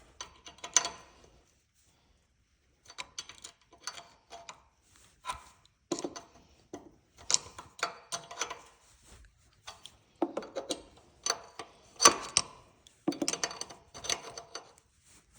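Socket ratchet clicking in short bursts as a fastener is run down and tightened, with a pause of about a second and a half near the start.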